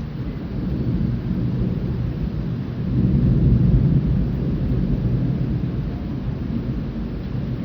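Thunder rumbling, a long low roll that swells to its loudest about three to four seconds in and then slowly dies away.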